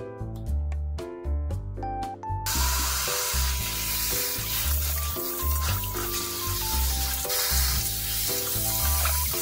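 Background music with a steady beat. From about two and a half seconds in, tap water runs in a steady hiss and splashes as corn cobs are rinsed under it over a stainless steel bowl.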